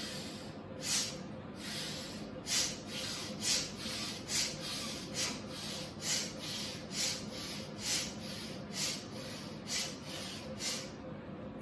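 Bhastrika (bellows breath) pranayama: rapid, forceful breaths through the nose, about two a second in an even, steady rhythm.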